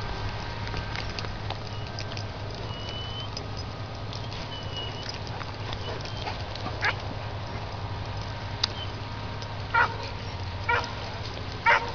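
A dog barking: one bark around the middle, then several single barks about a second apart near the end, over a steady low rumble.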